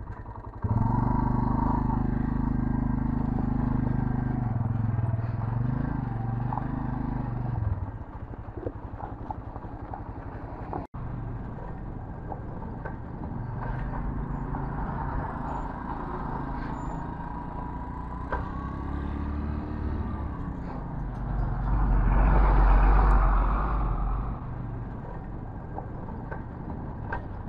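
Motorcycle engine running steadily. After an abrupt break, road and engine noise carries on more quietly, and a louder low rumble swells and fades about three-quarters of the way through.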